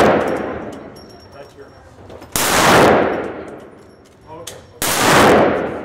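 A semi-automatic pistol is fired twice, single shots about two and a half seconds apart, each ringing out in a long echo from the enclosed indoor range. The echo of an earlier shot is still dying away at the start.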